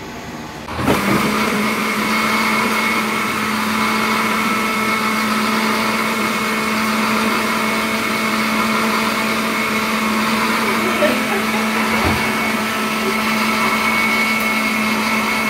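Electric countertop blender running steadily at full speed, its motor starting about a second in.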